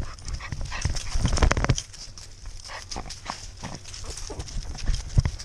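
A dog running with a GoPro strapped to its harness: irregular thuds and knocks from its footfalls jolting the camera, with dry grass and leaves brushing past. The thuds are heaviest about a second in.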